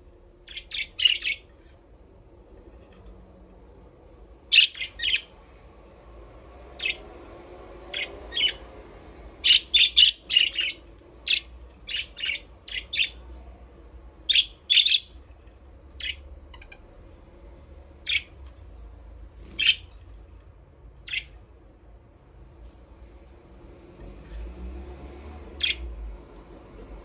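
Budgerigars chirping and squawking in short, sharp calls that come in scattered clusters, busiest about a third of the way in and thinning out toward the end.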